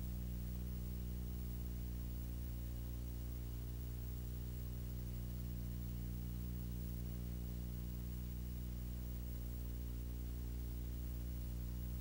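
Steady low electrical mains hum with a stack of buzzing overtones and faint tape hiss, unchanging throughout.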